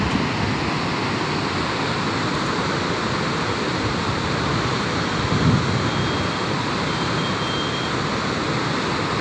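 Steady rushing of floodwater discharging through a dam spillway's open gates and crashing into the river below. There is a brief low thump about five and a half seconds in.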